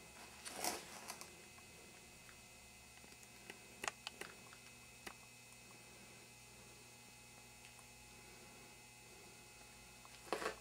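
Near silence: a faint steady hum, broken by a few brief rustles and clicks about half a second in, around four seconds in and near the end.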